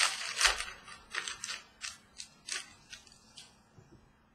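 Trading cards and their packaging handled on a tabletop: a quick run of crisp rustles and snaps, about a dozen, thinning out and fading toward the end.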